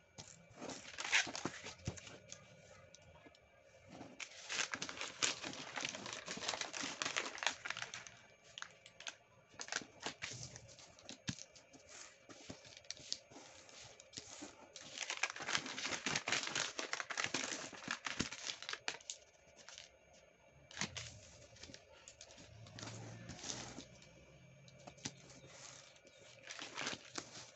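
A sheet of origami paper rustling and crinkling as it is handled, folded and its creases pressed flat by hand. It comes in several bursts of a few seconds each, with quieter stretches between.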